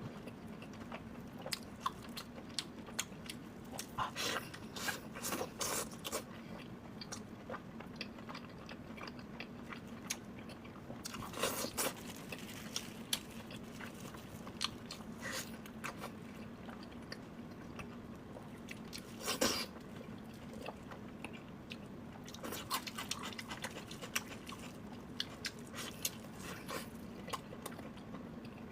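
Close-miked chewing and biting of sweet and spicy pork belly with green vegetables, wet crunching in clusters of sharp bites several times. A steady low hum runs underneath.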